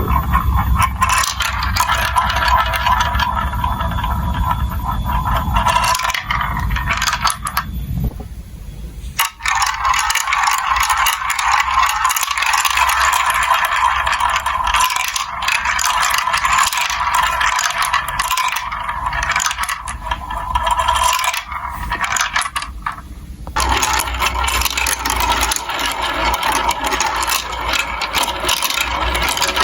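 Marbles rolling and clattering along plastic building-block marble-run tracks: a continuous rattle of many small clicks and knocks. A lower rolling rumble drops out at about eight seconds and comes back at about twenty-three seconds.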